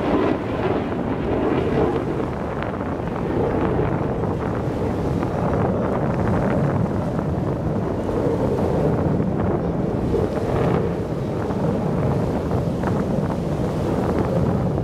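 Steady wind buffeting the microphone: a low, even rumble with no pitched sound.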